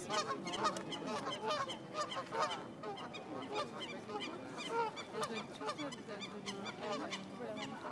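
Canada geese honking, many short calls a second, overlapping.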